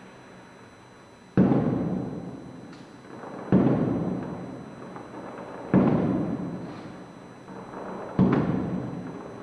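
Aerial firework shells bursting, heard from about 1.3 km away: four deep booms roughly two seconds apart, each dying away in a long rolling echo.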